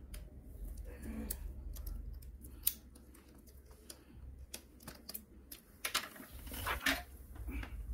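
Scattered sharp clicks and crackles of a plastic laptop keyboard and top case being pressed and handled, with a short scraping rasp near the end, over a steady low hum.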